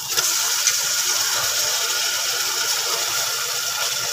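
Raw meat pieces dropped into hot ghee and fried onions in an aluminium pressure cooker, sizzling as they land. The sizzle starts suddenly and holds steady.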